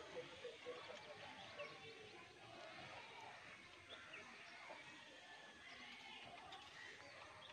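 Near silence: faint outdoor ambience with scattered short bird chirps.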